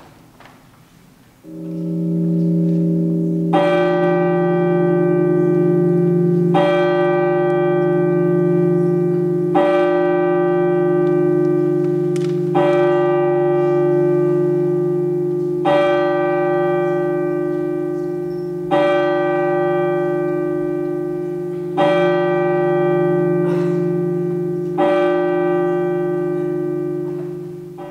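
A bell tolling slowly, eight strokes about three seconds apart, each left ringing over a low sustained tone that starts just before the first stroke. It fades away at the end.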